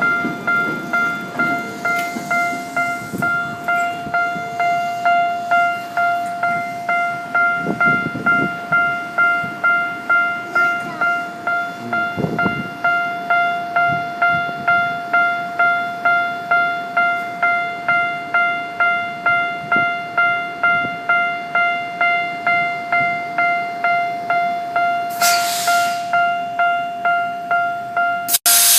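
Japanese railway level-crossing alarm bell ringing its electronic ding in a steady repeating beat, about one and a half strokes a second, as a train is due at the crossing. A short hiss comes near the end.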